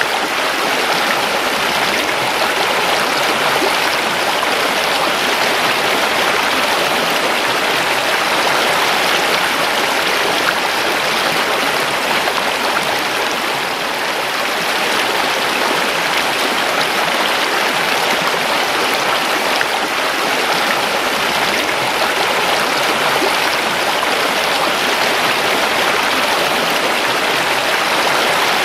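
River water flowing and rushing over stones: a steady, even rush with no pauses.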